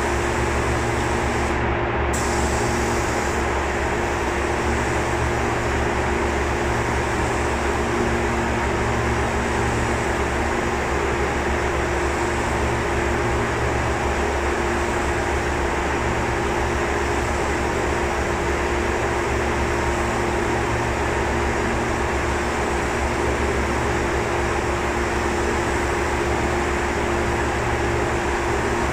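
Compressed-air spray gun hissing as it sprays primer, over a steady machine drone with a constant hum. The hiss cuts out briefly about two seconds in, then resumes.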